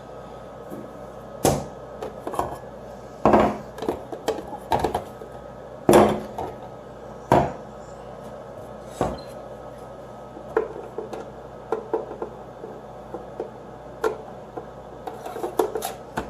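Plastic parts of a mini fridge being handled and taken out: irregular knocks and clatters, a few sharp, over a steady low hum.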